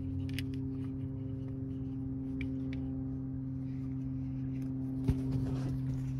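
Steady low drone inside a vehicle's cab, with a few light clicks and rustles, and one sharp thump about five seconds in.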